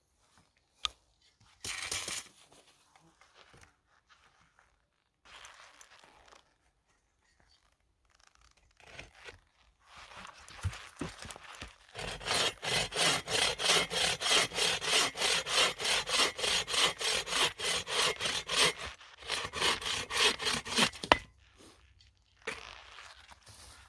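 Hand-sawing wood: scattered rubbing and scraping, then a long run of quick, even back-and-forth saw strokes, about four a second, with a brief pause before the strokes resume and stop.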